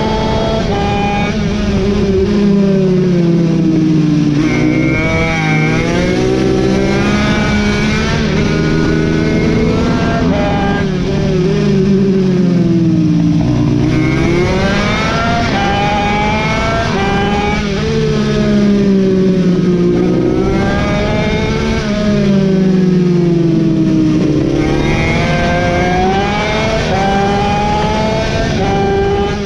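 Racing mini bike's engine heard from on board, lapping hard: it revs up and climbs in pitch along each straight, then drops away into each corner, over and over.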